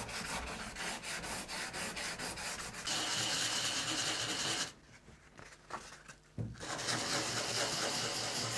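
Coarse sandpaper rubbed by hand over a carbon/Kevlar composite kayak hull in quick back-and-forth strokes, keying the surface so a repair patch will bond. The rasping breaks off for about two seconds in the middle, then starts again.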